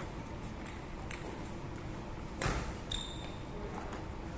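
Table tennis ball clicking off the paddles and the table during a rally, a hit roughly every half second. The loudest hit comes a little past halfway, and the next one, a bounce, has a short high ring.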